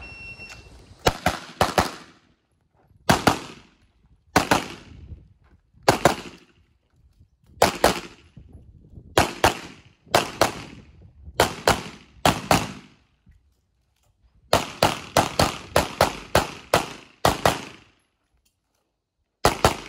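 A shot-timer beep gives the start signal. Then a handgun fires in quick pairs every second or two, with a faster run of about a dozen shots around fifteen seconds in and a final pair near the end.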